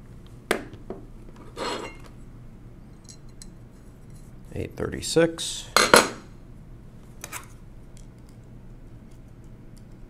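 Handling small metal parts and tools on a workbench: screws and a screwdriver clink and knock against metal. There are a few sharp clicks, a short rattle near two seconds in, and a louder cluster of clinks and clatter around five to six seconds in.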